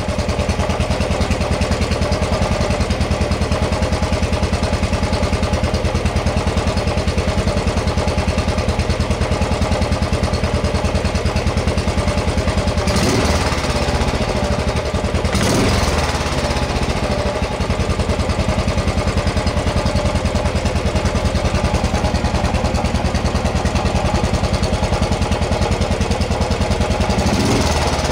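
Royal Enfield Classic 500 single-cylinder engine idling with its steady, rapid thud, revved briefly twice around the middle and once more near the end.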